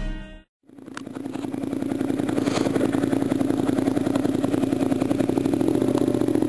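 Motorcycle engine with an aftermarket slip-on exhaust running steadily, with an even pulsing beat. It fades in after a brief silence about half a second in.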